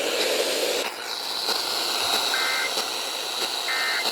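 Emergency Alert System end-of-message tones on FM radio: two short, warbling two-tone digital data bursts about a second and a half apart over steady radio hiss, marking the end of the flash flood warning. The broadcast audio cuts out about a second in.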